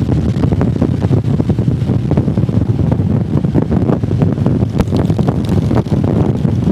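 Motorcycle on the move: wind buffeting the microphone steadily over the engine running underneath.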